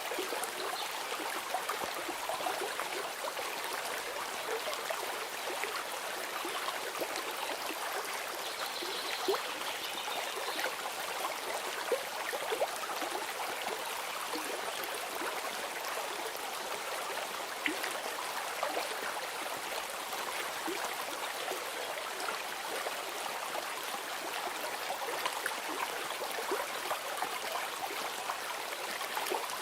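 Stream of water babbling and trickling steadily.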